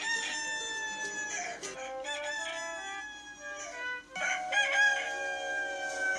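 Rooster crowing sound effect: two long crows about four seconds apart, each ending on a drawn-out, slightly falling note, with shorter calls between them.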